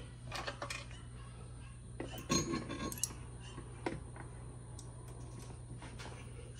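A metal bolt and spacer clinking and clicking against a golf cart's metal roof bracket as they are fitted by hand: a few light clinks, a quick cluster a little past two seconds in, and one more near four seconds. A steady low hum runs underneath.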